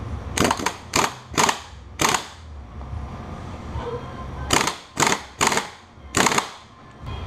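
Impact wrench hammering in about eight short bursts, four in quick succession, a pause, then four more, as it tightens the nut on the motorcycle's new front sprocket.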